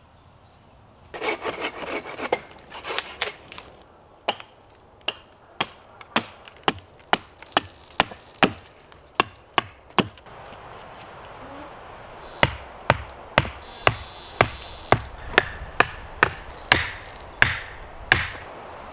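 Wood scraping and rubbing, then an axe striking a wooden stake held against a log to cut its point, about two sharp strikes a second. In the last third come heavier thuds as the stake is pounded into the ground with the back of the axe, again about two blows a second.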